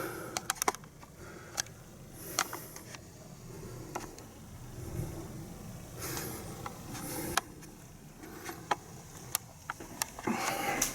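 Handling noise: clothing rustling, with scattered sharp clicks and knocks at irregular moments and a faint low hum underneath.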